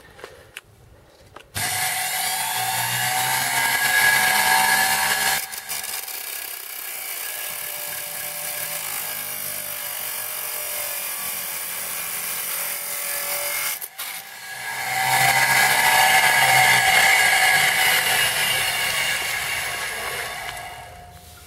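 Homemade metal cut-off saw driven by a washing-machine motor, switched on about a second and a half in and running with a high whine that changes in pitch. It stops briefly around the middle, starts again, and winds down near the end.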